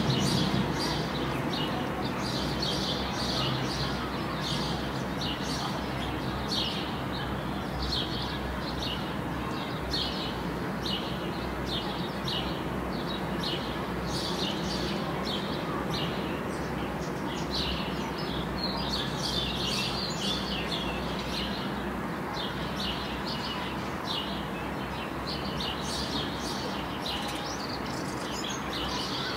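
Birds chirping, short calls repeating every half second or so, over a steady low background rumble.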